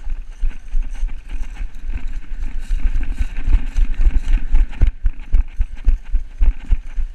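Running footsteps crunching through dry fallen leaves, with heavy thuds from the jolting body-worn camera a few times a second.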